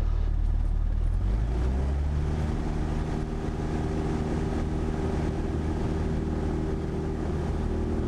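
Cessna 172's piston engine and propeller running up to takeoff power on the takeoff roll, rising in pitch over the first two seconds, then holding a steady drone.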